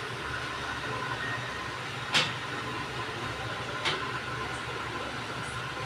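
Two short knocks of items being set down on refrigerator shelves, about two seconds apart, over a steady low hum.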